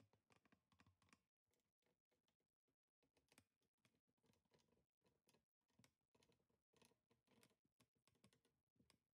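Near silence, with faint, irregular clicks scattered throughout.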